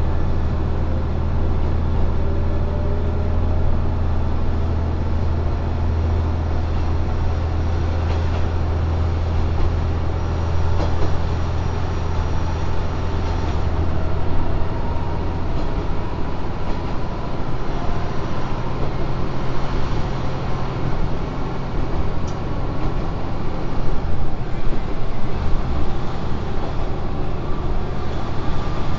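Kanto Railway KiHa 5000 diesel-hydraulic railcar accelerating from a stop, heard from inside the car. The diesel engine drones low and steady while a fainter whine climbs in pitch as the train gathers speed. About halfway through, the smooth low drone turns rougher.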